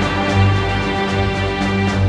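Background music: sustained chords over a bass line that swells and fades, with light percussion ticks.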